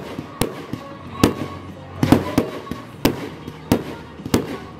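Fireworks display: aerial shells bursting overhead in a string of sharp bangs, roughly two a second.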